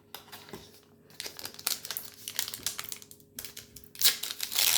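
Trading-card pack wrapper crinkling and tearing as it is opened by hand: a run of crackles from about a second in, a short pause, then louder crinkling near the end.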